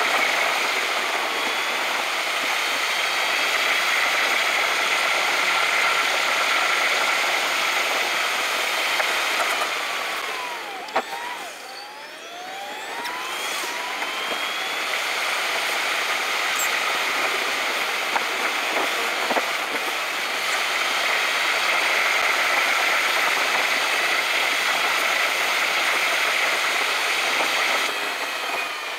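Car cabin noise while driving, fast-forwarded: a steady, high rush of road and engine noise. It dips briefly about twelve seconds in, with a few short gliding whines.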